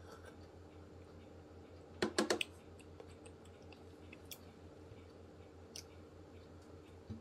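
Eating toast: a quick run of about four sharp crunchy clicks about two seconds in, then a few faint ticks, over a steady low hum.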